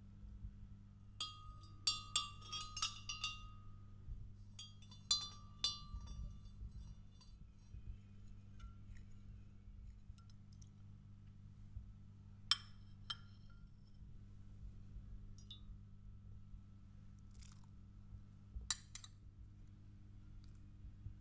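A metal spoon clinking against glassware in two quick runs of ringing clinks, then a few single clinks and knocks further on.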